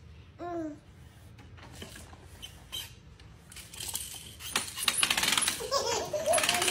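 A baby's short squeals, one about half a second in and another near the end, with clicking and rattling from a plastic push-along baby walker toy as it is gripped and pushed across the floor. The clatter is densest in the last couple of seconds.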